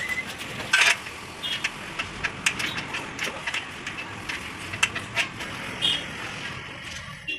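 Metal tools and car parts clinking and knocking in an irregular string of sharp, ringing clicks over a steady background hum, which cuts out near the end.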